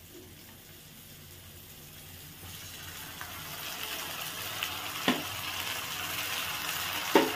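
Ginger, garlic and red chilli spice paste sizzling as it goes into hot mustard oil in a kadai. The sizzle builds from about two and a half seconds in. Two sharp knocks of a utensil against the pan come near the middle and at the end.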